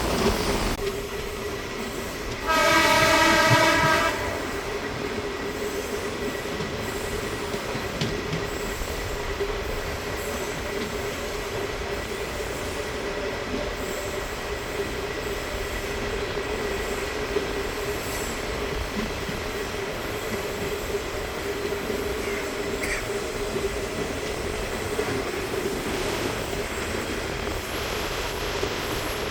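DEMU (diesel-electric multiple unit) train running with a steady drone. About two and a half seconds in, its horn sounds once for about a second and a half.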